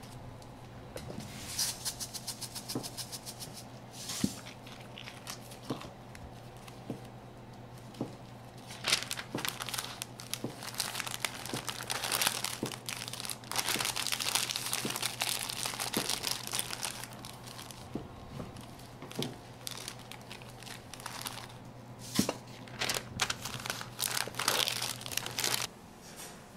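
Kraft paper crinkling and rustling in irregular bursts as a gimbap roll is wrapped in it by hand, with small taps and clicks, over a steady low hum that stops just before the end.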